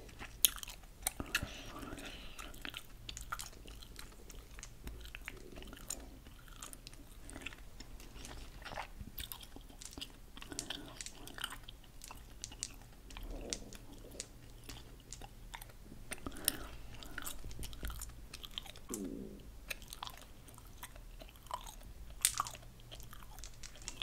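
Hard candy-coated gum pellets clicking and rattling against each other as they are picked up and shuffled in the palm: irregular small clicks throughout.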